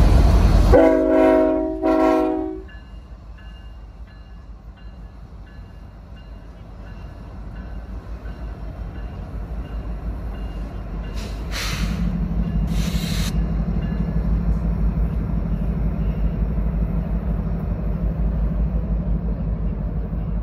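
Union Pacific diesel freight train: a close passing rumble cuts off under a second in, then two chord horn blasts. Afterwards the locomotives' low rumble builds up again and settles into a steady drone, with a few short hissing bursts about halfway through.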